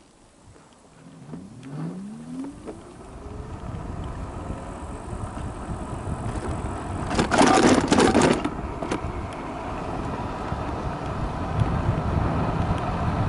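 Electric scooter pulling away: its motor whine rises in pitch over the first few seconds as wind and road noise build. About seven seconds in comes a loud clatter lasting about a second as the wheels cross railway tracks, then steady wind and tyre noise.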